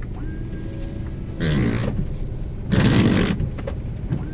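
Car windscreen washer and wipers working on the dusty front glass. Two loud rushing bursts come about a second apart, the second the louder, over the car's steady running.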